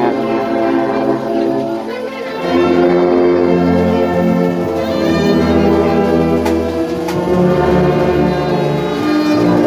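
Brass band of euphoniums, baritone horns and tubas playing long held chords; the deep bass parts come in strongly about two seconds in.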